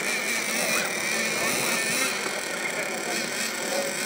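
Radio-controlled off-road truck driving on a dirt track: a steady motor whine with a faint high tone that wavers slightly.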